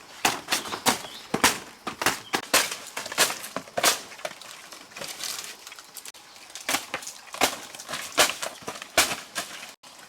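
A pig chewing and tearing fresh banana leaves, with loud irregular crunches about one to two a second.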